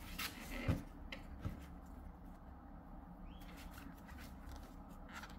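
Faint rustling and a few scattered soft clicks of a metal crochet hook pulling flat polyester cord through stitches, over a faint low hum.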